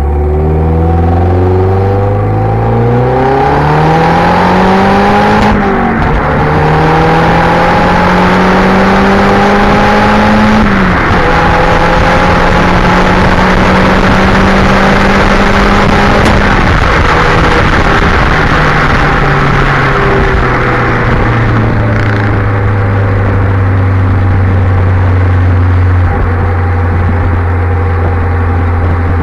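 Audi S3 8L's turbocharged 1.8-litre four-cylinder (1.8T 20VT), with its catalytic converter removed, pulling through the gears. The revs climb and drop at upshifts about five and eleven seconds in, then hold steady, ease off and settle lower and steady toward the end.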